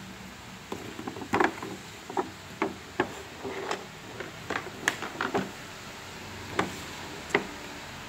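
A cardboard toy box with a plastic window being handled and turned over by hand: a string of irregular knocks and taps of the box, with a short pause before the last two.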